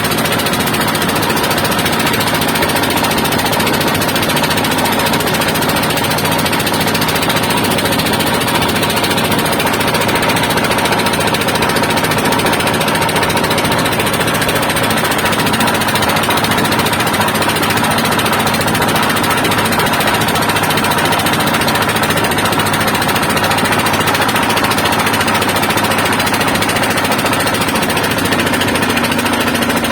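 Boat engine running loud and steady, with a constant drone and hum that doesn't change.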